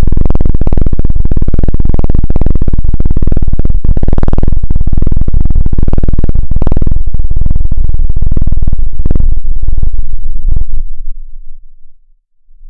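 A loud, distorted electronic buzz made up of rapid, dense pulses, with most of its weight in the low end. About eleven seconds in it fades to almost nothing, then starts to build again near the end.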